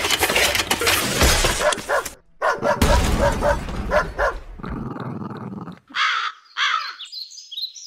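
Cartoon sound effects: a steam-driven tracked vehicle chugging and clattering as it drives off, then a dog's short barks, and a run of short rising bird chirps near the end.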